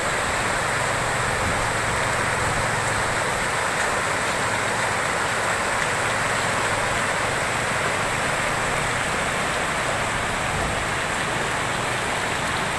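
Fast-flowing floodwater rushing across a road: a steady, unbroken rush of water.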